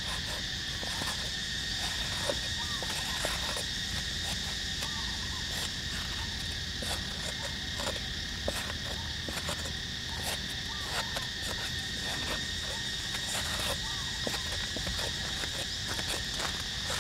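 Steady high insect chorus droning throughout, with irregular dull knocks and scrapes from a knife blade being stabbed into dry soil to dig a hole.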